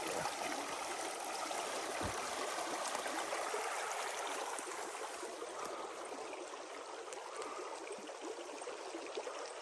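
Mountain stream running over rocks: a steady wash of water noise that grows a little quieter about halfway through.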